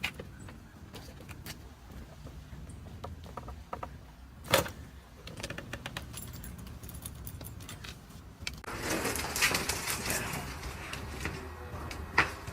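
A single sharp crack of a spine joint releasing under a chiropractic adjustment, about four and a half seconds in, among soft clicks and rustling of hands and clothing. About two-thirds of the way through a louder steady hiss with scattered clicks sets in.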